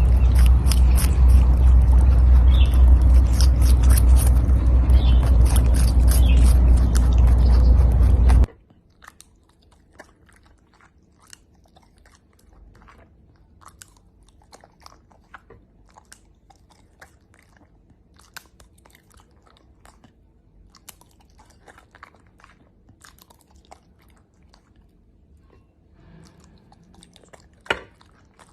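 Rabbit crunching cucumber, loud and close, with a heavy low rumble underneath. About eight seconds in it cuts to a dog chewing soft dragon fruit: quiet, scattered wet clicks and smacks, with one sharper click near the end.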